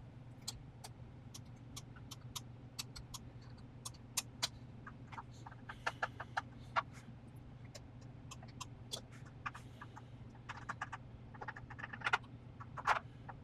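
Light, irregular clicks and taps of hand tools on metal while the valves of a VW air-cooled engine are adjusted, over a steady low hum.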